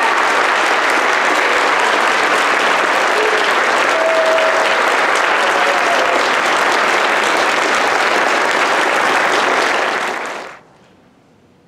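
Audience applauding steadily, cut off abruptly about a second before the end, leaving only faint room noise.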